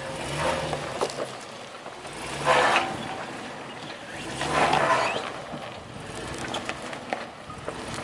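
Pickup truck engine revving in three short bursts as the truck crawls over rocks off-road, with a steady engine hum between them.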